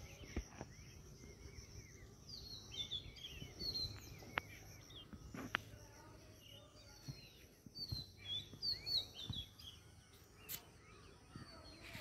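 Jungle babblers calling: clusters of short, high, falling chirps that come and go, with a few sharp clicks in between.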